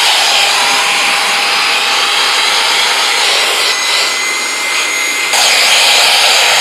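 Parkside 20 V cordless air pump running flat out, a loud steady whirr of its motor and fan with rushing air from the nozzle. Its tone shifts around four seconds in, and it gets louder a little after five seconds.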